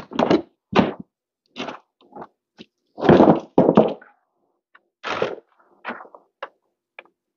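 Rummaging while searching for a missing Allen key: irregular knocks, thuds and scuffs of things being handled and moved about, with two louder scuffs about three and four seconds in.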